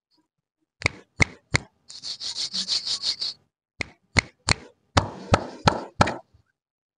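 Hands making a series of about ten sharp snapping clicks, spaced irregularly, with a quick run of about ten softer, higher clicks between them and a brief rustle near the end.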